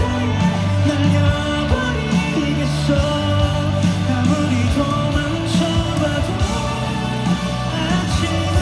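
Live band music in a rock-pop style, with a singing voice over it.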